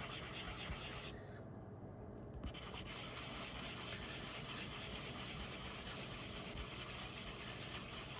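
Fine-grit sanding pad rubbing back and forth on a briar pipe bowl in quick strokes, taking the old finish off, with a short pause about a second in.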